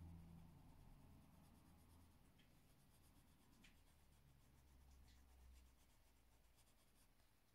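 Very faint scratching of a colouring tool stroking across paper, over a low room hum.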